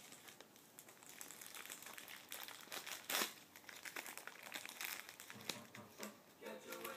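Paper and plastic packets of wound-dressing supplies crinkling and rustling as they are handled and peeled open by hand, with one loud crinkle about three seconds in.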